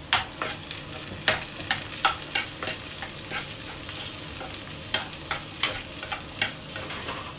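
A metal spoon stirring and scraping chickpeas around a nonstick wok, in irregular strokes over the steady hiss of the masala frying in oil.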